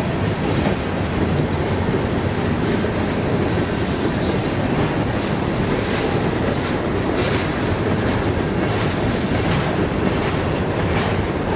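Loaded freight train hopper cars rolling past close by: a steady rumble of steel wheels on the rails, with occasional clacks.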